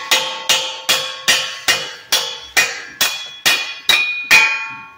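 Hammer blows on the threaded end of a 2008 GMC Acadia's driver-side CV axle shaft, driving the shaft back out through the wheel hub. About eleven sharp strikes, roughly two and a half a second, each leaving a short metallic ring, the last one near the end.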